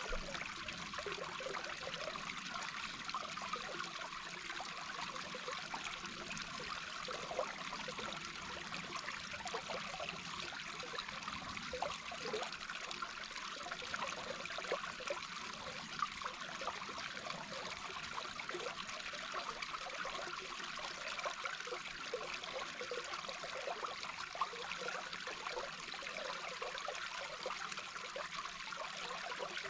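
Small brook's flowing water heard underwater: a steady rush with a dense patter of small bubbling and gurgling pops.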